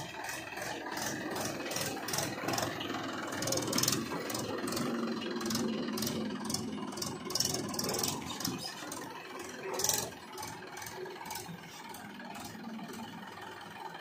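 Mahindra 585 DI tractor's diesel engine running steadily, its loudness rising and falling a little, with a brief louder moment about ten seconds in.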